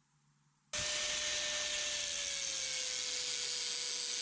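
Handheld angle grinder cutting metal, throwing sparks. It starts abruptly under a second in as a loud, steady whine, its pitch sagging slightly about two seconds in.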